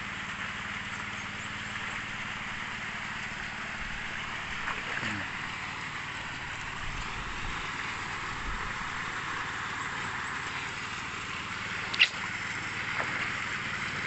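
Muddy sand-and-water tailings slurry rushing out of a tin mine's wooden sluice outlet, over a steady low engine hum. A single sharp click near the end.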